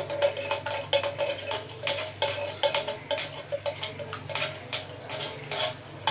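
Background music with a light, tapping percussive beat of about three strokes a second over held tones.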